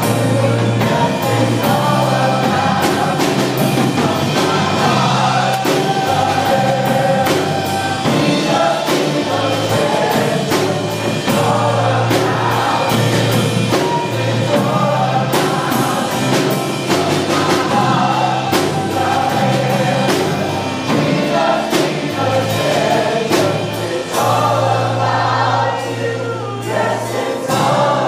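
Live gospel worship music: a band with a drum kit playing a steady beat while several voices sing together.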